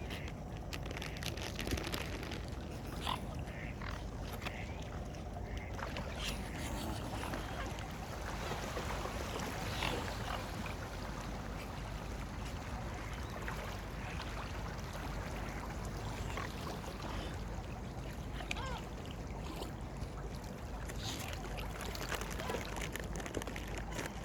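Lakeside ambience with waterfowl: a steady low rumble of wind and water, with scattered short duck and bird calls and small splashes.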